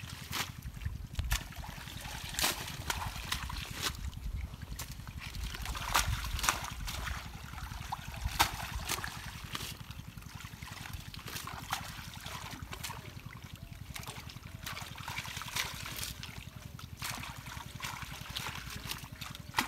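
Pond water sloshing and dripping, with irregular small splashes and rustles as a net is dragged by hand through thick water hyacinth. A steady low rumble runs underneath.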